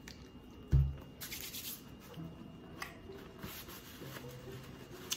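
A single dull thump about a second in, then soft rustling of cotton candy being handled and eating noises from chewing a cotton-candy-wrapped pickle, over faint background music.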